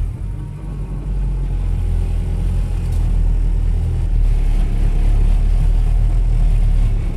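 Toyota Hilux engine working hard in low range, driving the truck through soft, wet beach sand, heard from inside the cab. It grows louder over the first few seconds and then holds.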